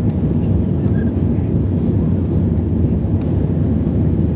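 Steady low rumble of jet engines and rushing air inside the passenger cabin of an easyJet Airbus A320-family airliner climbing after takeoff.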